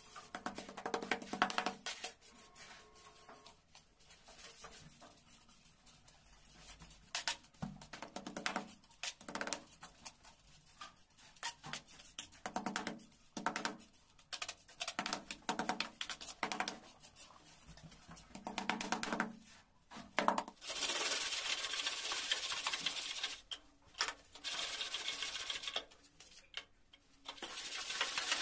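Hand tools working a coarse mortar bed: a trowel scraping and patting the mix in short, irregular strokes, then a straightedge dragged across it in three long scrapes in the last eight seconds to level the screed.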